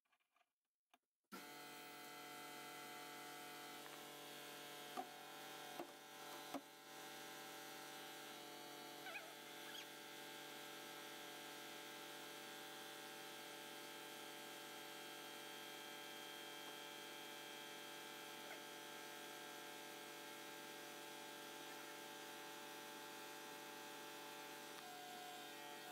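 Steady electrical hum made of many fixed tones, starting abruptly a little over a second in, with a few light knocks about five to seven seconds in.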